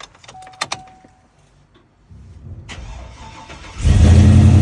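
Hummer H2's V8 cold-started: a few clicks and a short tone, then the starter cranks for under two seconds before the engine catches about four seconds in and runs loud and steady.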